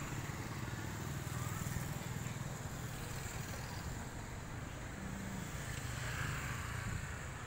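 Steady street traffic noise with motorcycle and car engines running, a motorcycle passing near the end.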